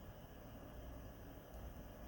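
Campfire burning quietly: a faint steady hiss with one small crackle about one and a half seconds in.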